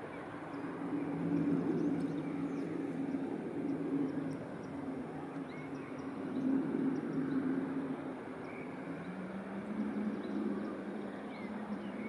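Steady low engine drone of a passing motor vessel, its pitch sinking a little near the end, with faint high chirps scattered over it.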